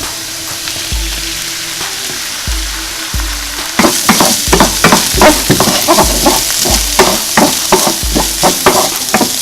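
Beaten eggs frying in hot sesame oil with vegetables in a pot. The sizzle jumps louder about four seconds in, then a spatula stirs and scrapes in quick strokes, about three a second.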